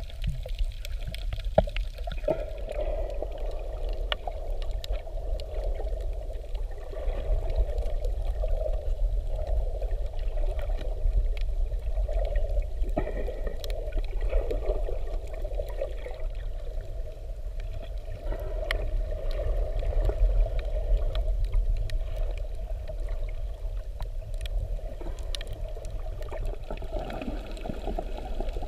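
Underwater ambience heard through a camera held under the sea: a muffled, steady water rush with a low rumble and scattered sharp clicks.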